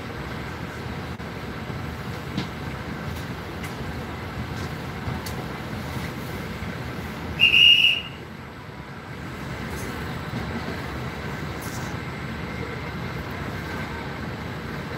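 Steady low rumble and hum of a train standing at a station platform, heard from inside the carriage, with a few faint clicks. About halfway through comes one short, high whistle blast.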